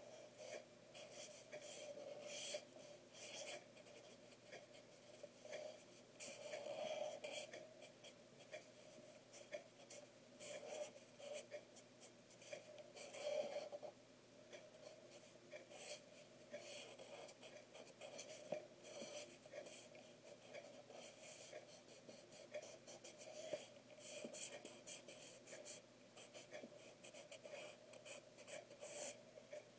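Faint felt-tip pen scratching across paper in many short, irregular strokes as a line drawing is inked.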